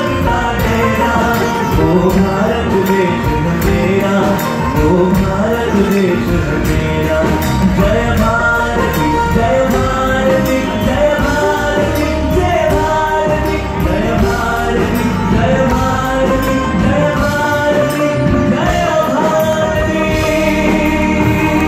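Live Bollywood song performance: a male singer with band accompaniment over a steady beat.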